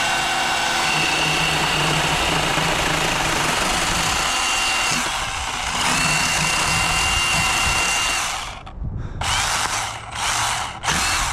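Milwaukee Hatchet battery-powered pruning saw running and cutting upward through a limb from underneath, a back cut that runs a little choppy. It runs steadily for about eight seconds, wavers briefly partway through, then stops and is triggered in a few short bursts near the end.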